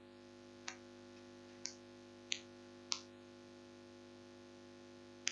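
Faint steady hum with five short, sharp clicks at uneven intervals, the last near the end.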